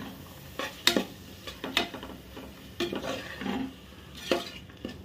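Slotted spatula scraping and knocking against the side of a pressure cooker pot, about once a second, as thick tomato masala is stirred and fried in oil.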